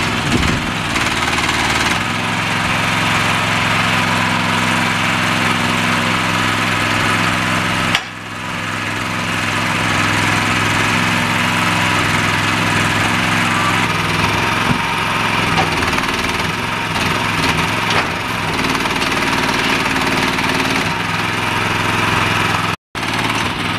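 Small engine of a remote-controlled shed buggy running steadily at a constant speed.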